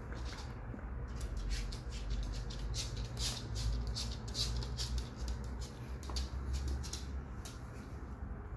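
West Highland white terrier sniffing close to the microphone: a run of short, quick sniffs, thickest in the middle, over a low rumble.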